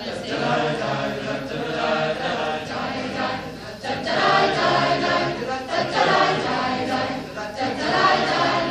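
A mixed choir of teenage voices sings a Scottish song in parts. The voices dip briefly a little before halfway, then come back louder.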